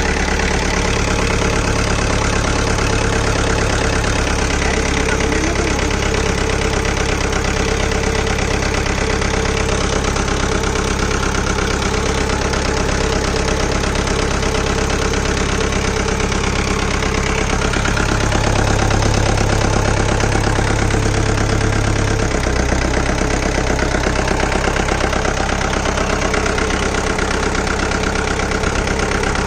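Jeep engine idling steadily and loudly, close up, fresh from an engine repair, with a slight change in its low note about two-thirds of the way through.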